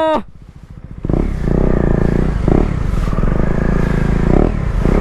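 KTM Duke 250's single-cylinder engine through a cheap copy of an Akrapovic aftermarket exhaust while riding. It is quiet at first, then loud from about a second in, with a few louder surges.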